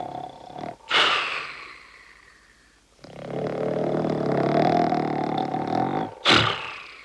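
Goofy's exaggerated cartoon snoring. A sharp snort about a second in trails off downward, a long drawn-out rasping snore follows for about three seconds, and another sharp snort comes near the end.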